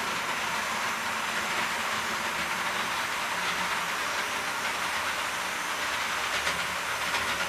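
HO scale model freight train running on the layout: a steady rolling hiss of wheels on track, with a few faint clicks near the end.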